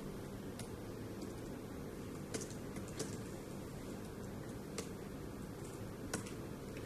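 Scattered light taps of fingers typing on an iPad's on-screen keyboard, about five irregular clicks over a steady low room hum.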